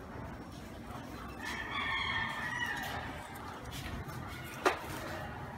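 A bird's long, pitched call held for about a second and a half, starting about a second and a half in. A sharp click near the end.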